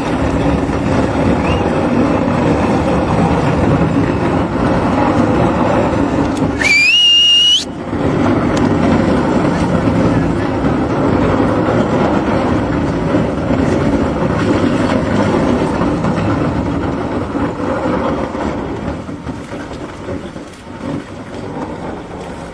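A crowd cheering and shouting over loud, steady machinery noise at a tunnel boring machine's breakthrough, with one shrill whistle blast about a second long around seven seconds in. The din fades near the end.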